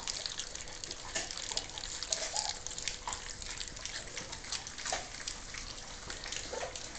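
A litter of three-week-old German shorthaired pointer puppies eating wet weaning food from trays: a steady patter of quick wet lapping and smacking clicks, with a few brief high puppy squeaks scattered through it.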